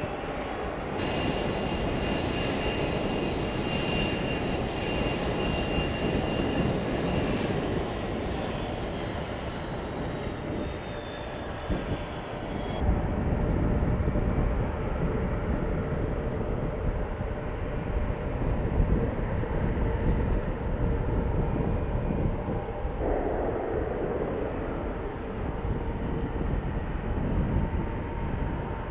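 Jet airliner engines running at low power: a steady rumble with a high whine. About halfway through, the whine drops out and a deeper rumble carries on.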